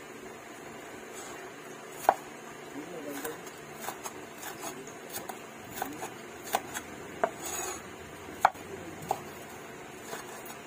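Broad-bladed kitchen knife chopping green bell pepper on a wooden cutting board: irregular sharp knocks as the blade strikes the board, coming closer together after the first few seconds.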